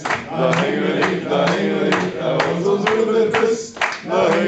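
A man singing into a handheld microphone, holding long notes with short breaks between phrases.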